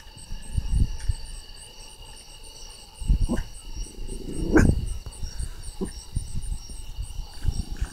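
Steady night chorus of insects: high trilling tones with a pulsing chirp repeating about four times a second. Low thumps come and go beneath it, and one short, louder sound comes about four and a half seconds in.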